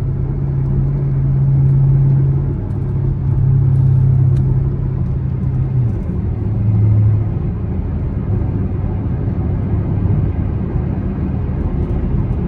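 Chevrolet Camaro SS V8 cruising on the highway, heard from inside the car: a steady low engine and exhaust drone over tyre and road noise. The drone drops in pitch and eases off about six seconds in.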